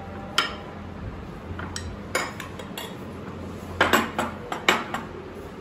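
Dishes, glass bowls and cutlery clinking and knocking on a glass-topped table as food is served, a series of sharp clinks with the loudest cluster about four seconds in.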